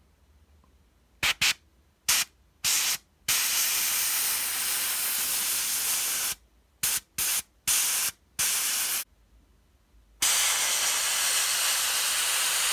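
Gravity-feed airbrush spraying thinned enamel weathering paint, a hiss of air and paint starting and stopping as the trigger is worked. There are a few short bursts, then a spray of about three seconds, more short bursts, and a steady spray from about ten seconds in.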